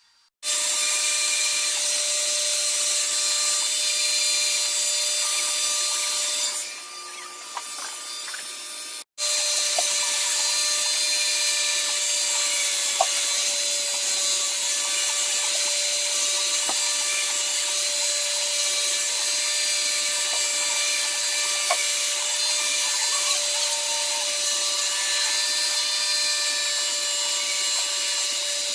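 Power tool running steadily at high speed with a whining motor, working through wood; it drops quieter for a couple of seconds, breaks off for an instant about nine seconds in, then runs on steadily.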